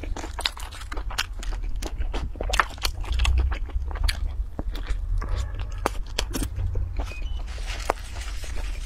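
Close-up eating: crisp bites into battered fried chicken crunching irregularly, with chewing in between.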